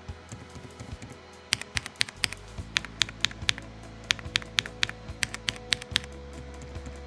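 Akko Creamy Blue Pro V3 tactile mechanical keyboard switches being pressed: a few scattered keystrokes, then quick runs of clacks at about five or six a second, over background music.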